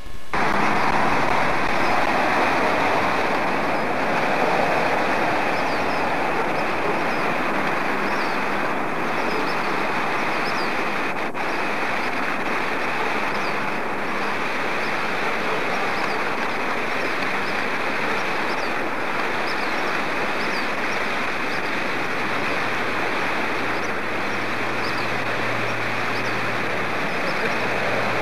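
Steady rushing of a shallow river running over rocks.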